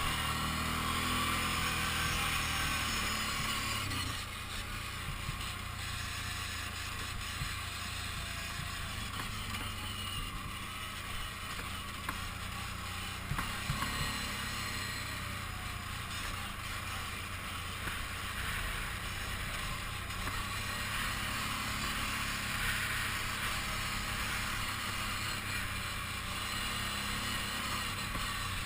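Kawasaki Brute Force 750 ATV's V-twin engine running steadily while riding, under a steady hiss, with a brief rise in engine pitch at the start and a couple of light knocks about halfway through.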